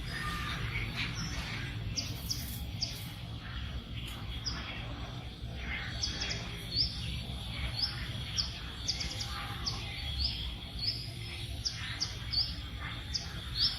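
Birds chirping: short, high chirps, irregular at about one or two a second, over a low steady rumble.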